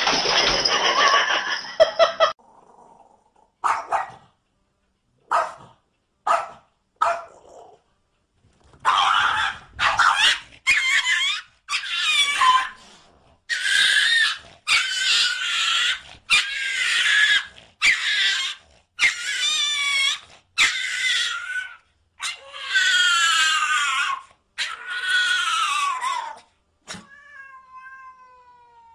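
A cat yowling over and over, a run of long wavering calls about a second each with short gaps. It opens with a loud rush of noise and a few short sharp sounds, and near the end a single long call falls in pitch.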